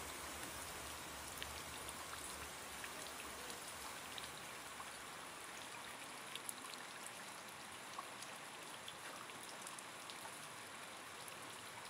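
Steady rain falling, an even hiss with scattered sharp ticks of drops.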